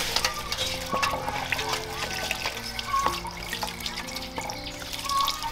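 Soft background music with held notes, over water splashing and dripping as leafy greens are washed by hand in a metal basin.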